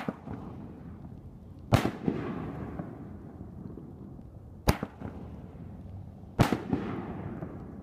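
60-gram canister firework shells being fired: a sharp launch thump, then the shell bursting in the air with a loud bang and a fading echo and crackle about a second and three quarters later, twice over.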